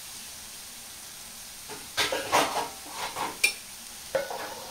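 Vegetables sizzling in an aluminium kadai. About two seconds in, a utensil scrapes and knocks against the pan several times for a couple of seconds.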